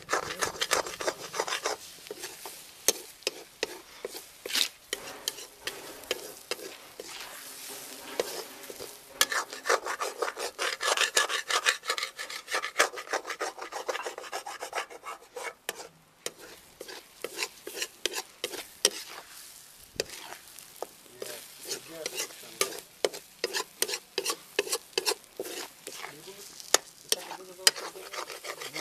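Slotted steel spatula scraping and stirring scrambled egg and tomato around a metal kadai in quick rasping strokes, over a light sizzle of frying. The scraping eases briefly about halfway through.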